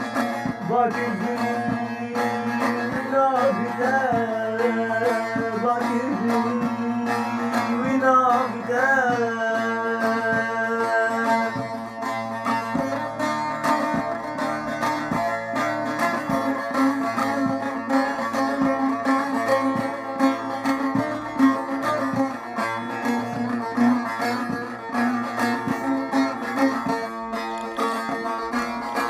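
Music from a sad song: a plucked string instrument playing, with a wavering melody line over it for about the first twelve seconds, after which the plucked strings carry on alone.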